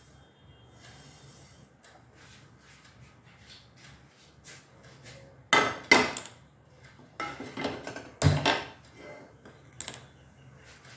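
Metal frying pan set down on a gas stove's steel pan supports: two sharp clanks about half a second apart. It then clatters and scrapes on the supports as it is shifted into place, with one more hard knock.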